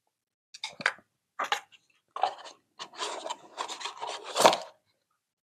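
Hands handling a small cardboard box and its foam insert: a string of short rubbing and scraping sounds, with a louder knock near the end as the insert is pressed into the box.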